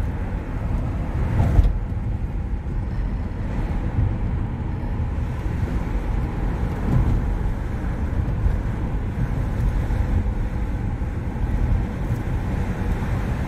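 Steady rumble of a car's engine and tyres heard from inside the cabin while driving along a road.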